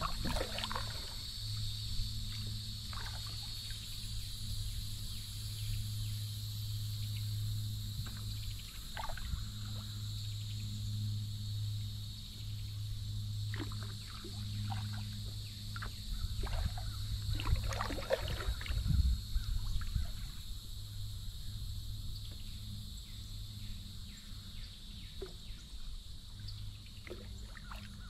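Water splashing and dripping around a moving kayak in short irregular strokes, busiest about two-thirds of the way in, over a steady high buzz of insects and a steady low hum.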